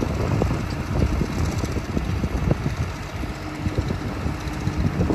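Kubota KX040-4 mini excavator's diesel engine running steadily at low speed, with a continuous low rumble and irregular knocking.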